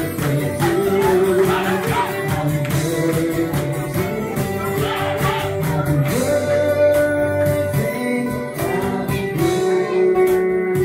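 Live acoustic band playing: a man singing over two strummed acoustic guitars, with a cajón beaten in a steady beat.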